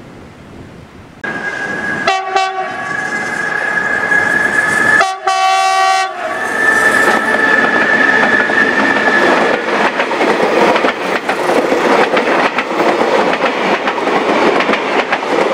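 A train's air horn starts abruptly about a second in as a chord of several tones, blowing three times, then holding one high tone for a few more seconds. A train's rumble and wheel clatter on the rails follows.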